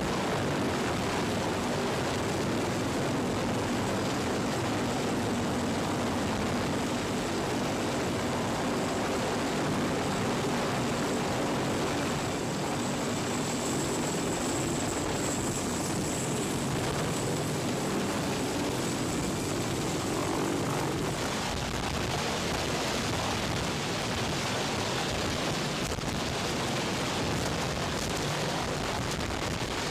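Sikorsky CH-53 heavy-lift helicopter hovering close overhead, its rotor and turbine engines running in a steady loud roar, with rotor downwash blowing across the microphone.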